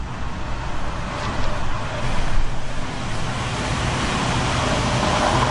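Steady outdoor city ambience: a constant hiss and low rumble of road traffic.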